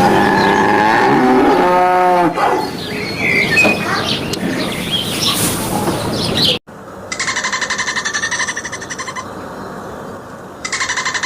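A cow mooing loudly, with birds chirping in the background. After a sudden cut, a different animal call comes in two bursts of about two seconds each, pulsing rapidly.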